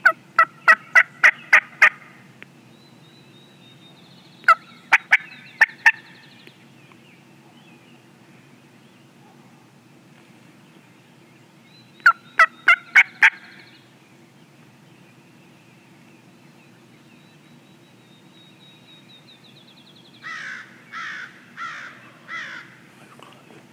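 Wild turkey yelping: three loud series of sharp yelps, about four a second, then four softer yelps near the end.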